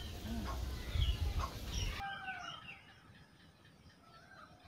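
Birds calling and chirping outdoors over a low rumble. About two seconds in the rumble cuts off and the sound drops quieter, leaving short sliding chirps and calls.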